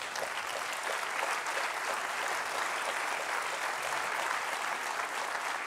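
Audience applauding, a steady mass of clapping.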